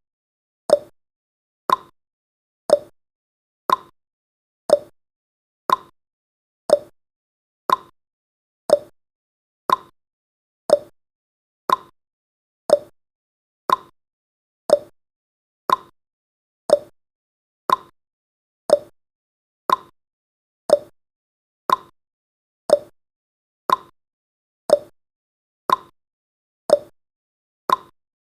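Countdown timer's clock-tick sound effect: one short tick about every second, alternating between a higher tick and a lower tock.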